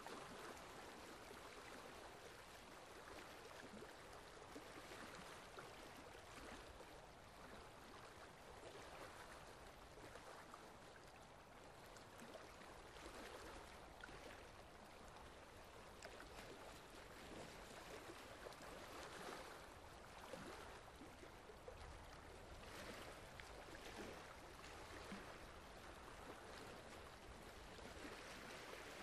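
Faint, steady trickling water.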